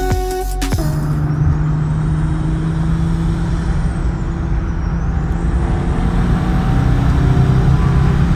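Car engine drone and road noise heard inside the cabin at motorway speed, steady and loud. Music plays for under a second before cutting to it.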